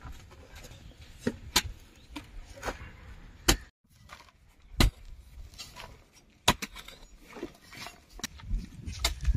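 Long-handled digging hoe chopping into dry sandy soil and scraping it into a plastic basin: a series of sharp strikes at an uneven pace, about one a second.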